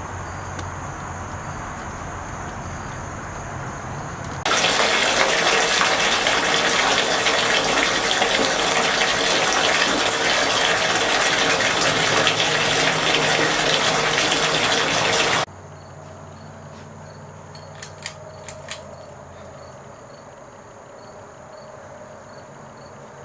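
Water gushing in, a loud steady rush that starts suddenly about four seconds in and stops abruptly about eleven seconds later. Before it there is a quieter steady hum; after it a quieter hum with a few sharp clicks.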